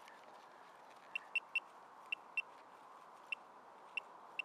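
Metal-detecting pinpointer probe giving about eight short, high-pitched beeps at uneven spacing, starting about a second in, as it is held in the dig hole: it is picking up a metal target in the soil.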